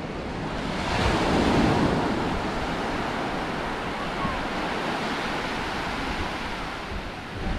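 Sea waves on the shore: a wave breaks about a second in and washes up the beach, then the surf hisses steadily.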